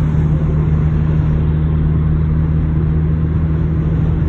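Strong wind noise around a car driving at highway speed, heard from inside the cabin, over the steady low drone of tyres and engine.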